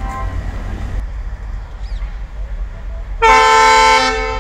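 Horn of the twin Alco WDM-3A diesel locomotives sounds once, about three seconds in. It is a loud, steady blast of about a second that then tails off, over a low, steady engine rumble. The horn signals that the train is ready to depart.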